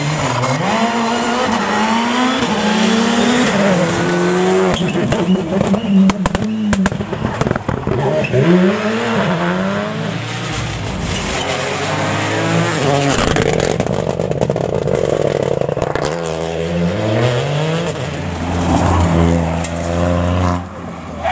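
Rally cars driven hard past the spectators, engines revving up and dropping again and again through gear changes and corners, with clusters of sharp cracks a few seconds in and again midway.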